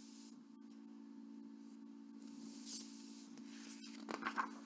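Faint rustling of a picture book's pages being handled and turned, with a few soft rustles toward the end, over a steady low hum.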